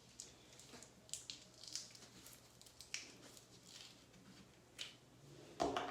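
Faint handling sounds of small items being picked up and moved: a scatter of small clicks and light rustles, with a louder rustle near the end.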